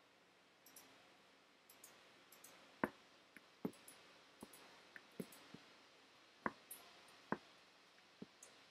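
A tambour hook punching through stretched fabric as beads are chained on: irregular sharp clicks, about a dozen, a few much louder than the rest.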